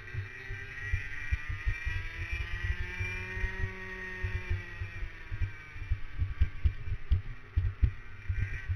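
Racing kart engine heard on board at speed, its pitch climbing over the first few seconds, then falling away as it slows, and rising again near the end. Heavy low buffeting on the onboard microphone sits under the engine note.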